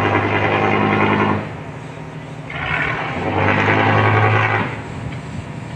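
Fishing boat's engine revved hard in two bursts: one that cuts off about a second and a half in, and a second run-up from about two and a half to four and a half seconds, with a quieter idle between.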